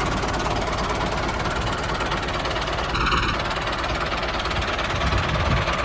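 Small engine of a mini tractor running steadily at idle with a knocking chug.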